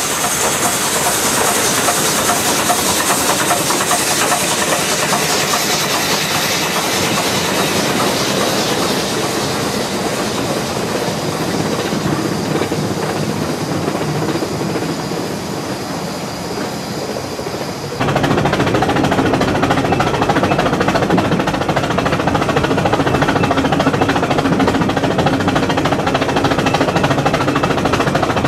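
Small steam rack locomotive passing close by, its steam hissing loudly at first and fading as its coaches rattle past on the rack track. About two-thirds of the way through the sound cuts abruptly to a louder, steady running noise of the train on the move.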